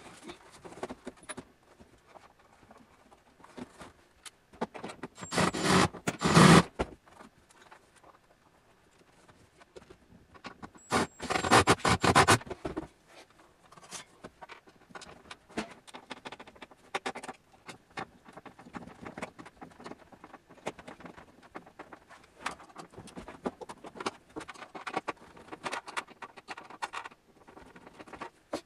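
Two runs of a Ryobi cordless drill driving screws into the wall, each lasting about two seconds, about five and eleven seconds in. Between them and after, scattered clicks, taps and scrapes of the monitor and wooden board being handled.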